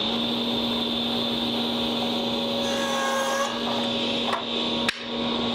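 Shopsmith Mark 7 table saw just reaching a steady 3400 rpm, with a dust collector hissing behind it. About three seconds in, the blade cuts through a small piece of wood, and two sharp knocks follow near the end.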